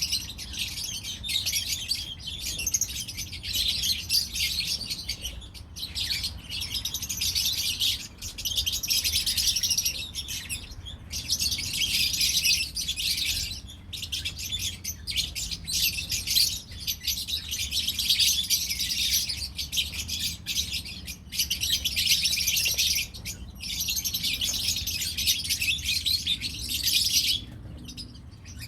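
A group of lovebirds chattering: a dense, continuous stream of shrill, high chirps with only brief pauses.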